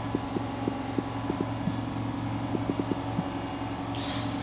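Steady low hum with a scatter of faint, soft fingertip taps on a smartphone touchscreen keyboard, a few a second in short runs, as a search is typed. The taps stop a little before the end.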